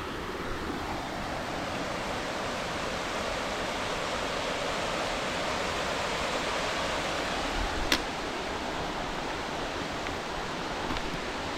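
Steady rushing of water, an even hiss that swells a little midway, with a single sharp click about eight seconds in.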